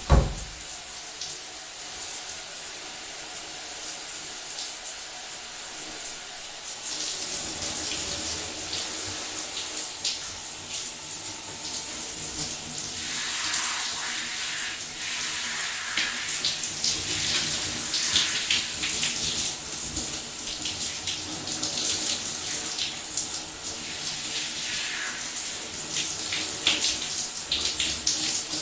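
A running shower, its spray spattering unevenly, growing louder about seven seconds in. It opens with a single sharp thump.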